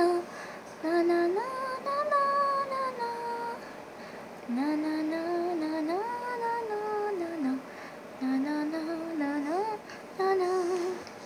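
A single voice singing a slow, wordless tune, holding notes and sliding between them in short phrases with brief pauses.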